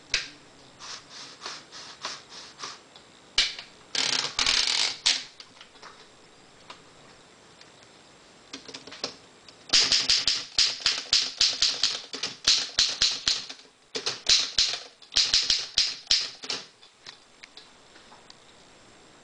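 1909 Underwood desktop typewriter being typed on: sharp clacking keystrokes, a few at a time at first, then a fast run of typing from about halfway that stops a couple of seconds before the end.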